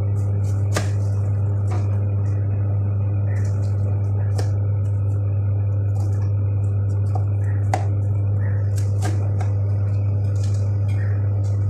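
A steady low hum, with scattered light clicks and snaps of broccoli being handled and broken into florets on a plastic cutting board.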